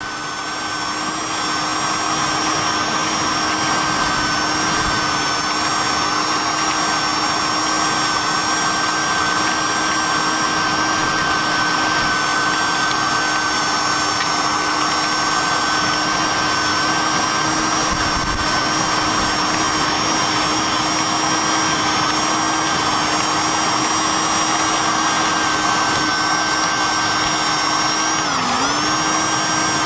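Old vacuum cleaner running steadily, a constant motor whine over rushing air. It grows louder over the first second or two, and its pitch dips briefly near the end.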